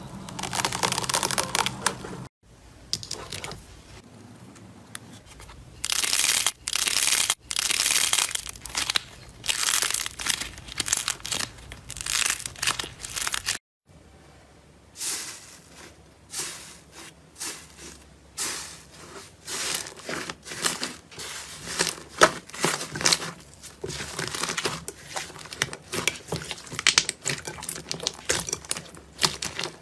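Slime being worked by hand, squeezed, stretched and pressed, giving repeated bursts of crackling and popping. The sound breaks off abruptly twice, about two seconds in and near the middle, as one clip gives way to the next.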